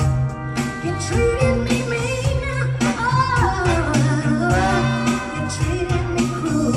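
Live soul band playing: a woman sings lead, her voice sliding and wavering on long notes from about a second and a half in, over drums keeping a steady beat and held band chords with bass, guitar, keyboard and horns.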